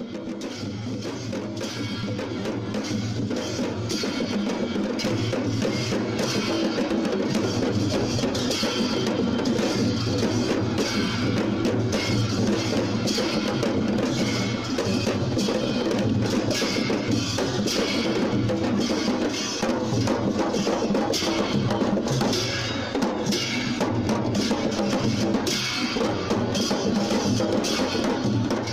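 Music carried by drums: a deep bass drum under quick, dense drum strikes. It fades in over the first few seconds and then keeps going steadily.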